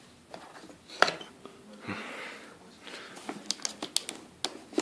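Hands handling a laptop's box and packed accessories: a sharp knock about a second in, a brief rustle of packaging around two seconds, then a run of quick clicks and taps near the end.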